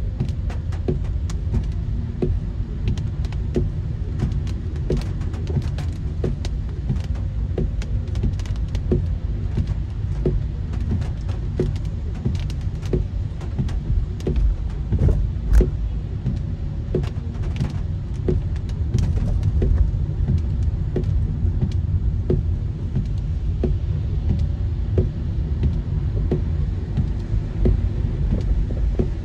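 A car driving through heavy rain: a steady low road rumble with many irregular sharp taps of raindrops striking the car.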